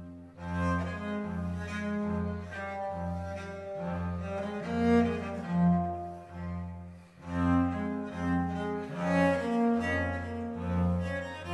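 Music: slow bowed-string notes in a cello-like register over a sustained low bass line.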